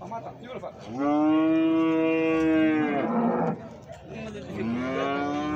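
Cattle mooing: one long, steady moo starting about a second in and lasting about two seconds, then a second moo that swells up near the end.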